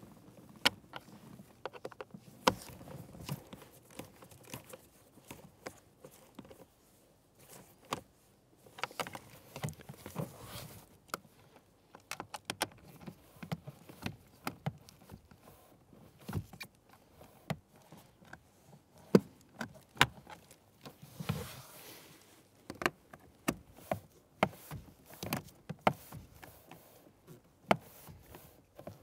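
Hand tools working the mounting screws of an HVAC blower motor in its plastic housing: irregular sharp clicks and ticks, some in quick runs like a ratchet turning, with metal tool tapping on plastic.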